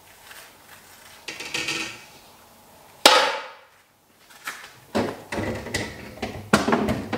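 Refrigerator shelves being pulled out: a sharp knock about three seconds in, then a run of clattering knocks and scrapes as the shelves bump against the fridge.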